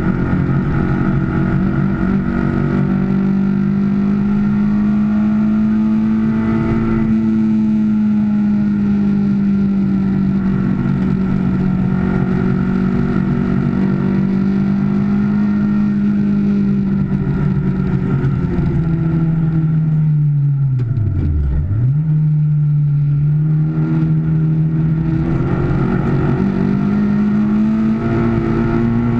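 Car engine running hard under load, heard from inside the cabin, its pitch holding fairly steady. About twenty seconds in the note drops sharply and comes straight back, runs lower for a few seconds, then climbs again near the end.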